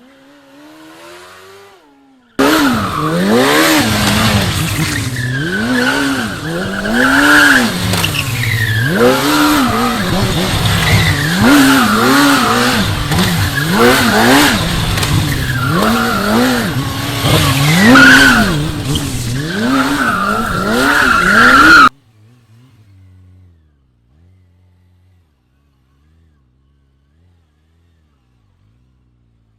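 Motorcycle engine revving up and down again and again while the tyre squeals in skids. The sound starts suddenly a couple of seconds in and cuts off sharply about twenty seconds later, leaving only a faint engine.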